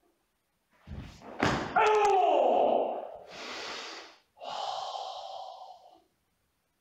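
A karateka working through a kata: a sharp snap of the gi or a stamp on the wooden floor about a second and a half in, then a short voiced shout falling in pitch, followed by two long, forceful hissing breaths out.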